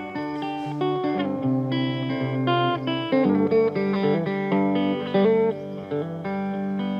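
Live band instrumental break in which a guitar plays a melody of single sustained notes, changing note every half second or so, over a steady low accompaniment.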